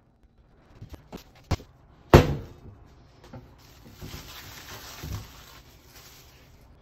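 A stainless-steel bowl set down with a loud clunk on a stainless-steel counter after a few light knocks, followed by plastic cling film crinkling as it is peeled off the bowl.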